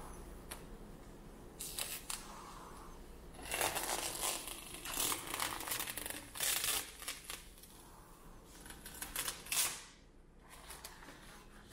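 Irregular clicks, clatter and rustling from something being handled, busiest in the middle and ending in a sharp burst just before the last two seconds.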